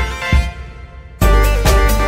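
Electronic background music with a steady beat. It drops out briefly and comes back in fuller just over a second in.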